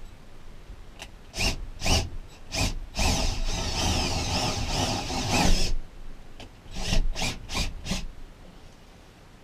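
Power drill with a 3/8-inch bit enlarging holes in a van's ceiling cross member so they fit rivnuts: a few short bursts, then about three seconds of steady drilling, then several more short bursts.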